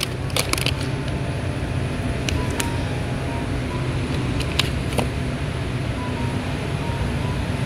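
Steady low rumble of a large store's background noise, with a few light clicks and knocks.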